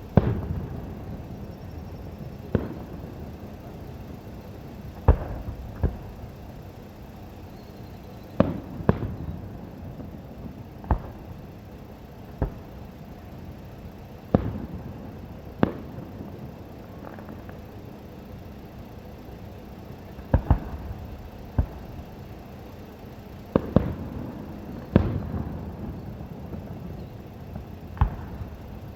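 Aerial fireworks shells bursting in a show: sharp booms at uneven intervals of one to three seconds, some coming in quick pairs, each followed by a short rumbling echo.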